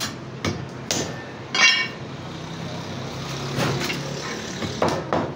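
Butcher's cleaver knocking on a wooden chopping block while goat meat is cut, several sharp knocks, one ringing with a metallic clink about a second and a half in, and a quick cluster of knocks near the end. A low steady rumble sits underneath in the middle.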